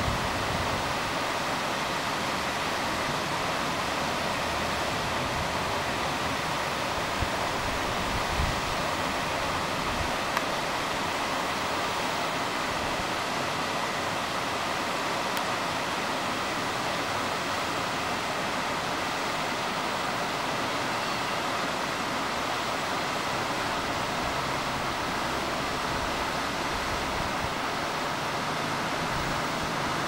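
A cascading mountain waterfall rushing steadily down rock ledges, an even, unbroken roar of falling water.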